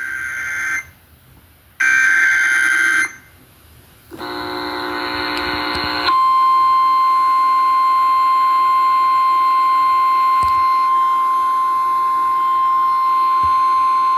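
Emergency Alert System broadcast over FM radio: three short buzzing digital data bursts (the alert header), then a long, loud, steady single-pitch attention tone. It signals the start of an emergency alert, here a test tornado warning.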